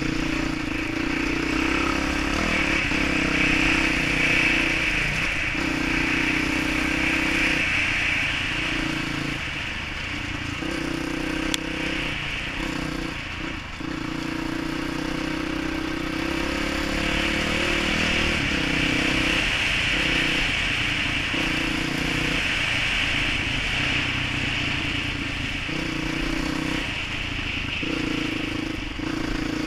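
Dirt bike engine running at riding speed, the throttle rolling off and back on every few seconds as the bike picks its way along a trail.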